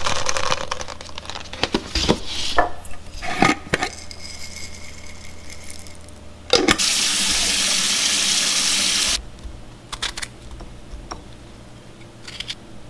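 Breakfast being made in a kitchen: dry oats and raisins poured into a bowl and a jar clinking, then a tap runs steadily for about two and a half seconds and shuts off abruptly.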